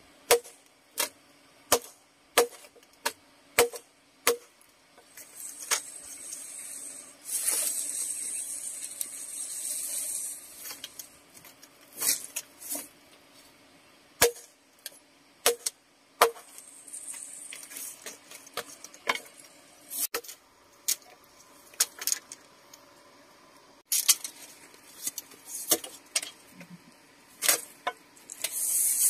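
Sharp knocks or taps, about one every 0.7 s at first and then irregular, with stretches of high rustling hiss between them, the longest lasting about three seconds.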